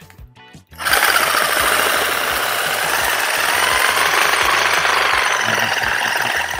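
Cordless AEG reciprocating saw switched on about a second in and running steadily. It is loud, driving a bar clamp with a soda can gripped in it back and forth in place of a blade to shake the can.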